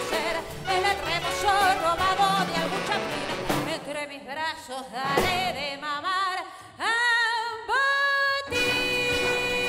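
Female voice singing sliding, swelling phrases with wide vibrato over a tango-jazz band and symphony orchestra; about eight and a half seconds in, the music settles onto a long held chord.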